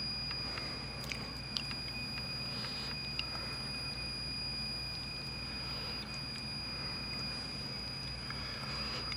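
Pioneer CT-W840R cassette deck running with a steady high-pitched squeal over its motor hum, which the owner suspects comes from a belt. A few light clicks sound in the first few seconds.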